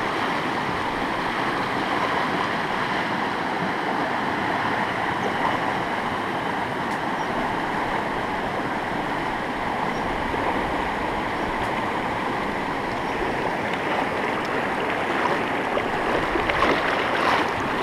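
Fast mountain river water rushing steadily through a log jam and over shallow rapids, an even rushing hiss.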